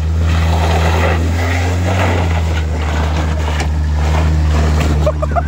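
Honda Civic's four-cylinder engine held at high, steady revs as the car is driven hard up out of a creek crossing, over a rough noisy rush of tyres scrabbling on rocks and water. A quick string of short high chirps comes near the end.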